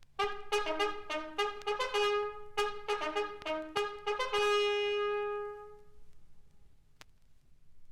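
Japanese army bugle call played from a vinyl LP: a quick run of short notes jumping between a few pitches, ending on one long held note that fades out about five to six seconds in. A single sharp record click follows near the end.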